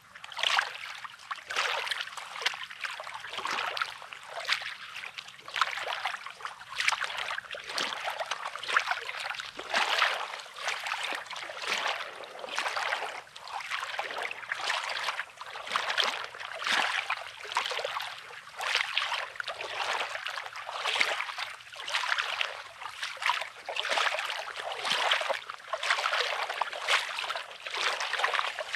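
Small sea waves lapping and washing on a rocky sand shore, in short washes about once a second.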